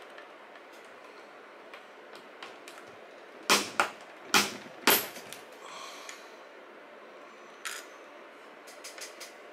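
Sharp plastic clicks and snaps as a 3.5-inch hard drive is pressed down in its plastic external-enclosure tray. There are four loud snaps within about a second and a half around the middle, one more a few seconds later, and faint ticks of handling between them.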